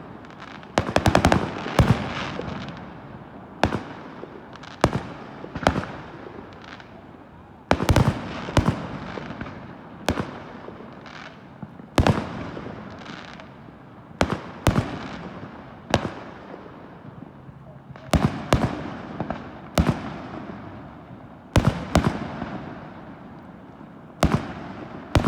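Fireworks exploding in a steady barrage: a sharp bang about every second, some in quick pairs, each trailing off in an echoing rumble and crackle.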